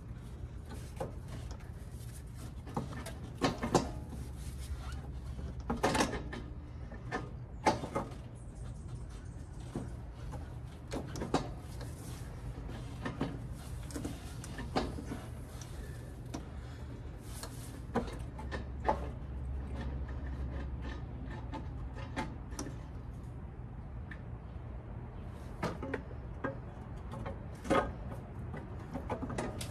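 Irregular metal clunks and clicks as a new exhaust manifold catalytic converter is worked by hand onto its studs against the cylinder head, with a steady low hum underneath.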